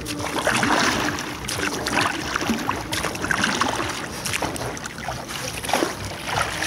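Water splashing and lapping around a small boat moving on a river, with irregular splashes throughout.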